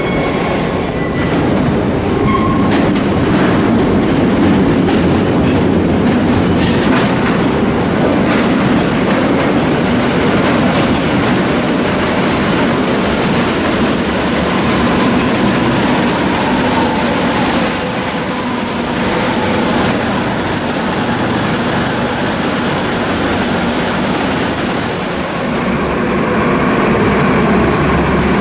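Madrid Metro trains running through underground stations: a steady rumble of wheels on rail and running gear throughout, with a high, wavering wheel squeal from about 18 to 26 seconds in.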